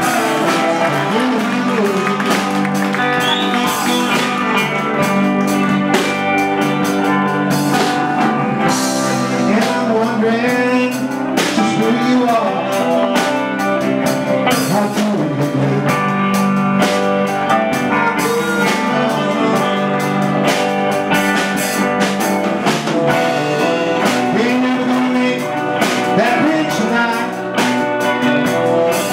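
Live blues band playing: electric guitar and drum kit with a male singer at the microphone.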